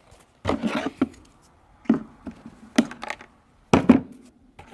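A handful of sharp clicks and knocks about a second apart, the loudest near the end, from handling the repaired inner door handle hardware.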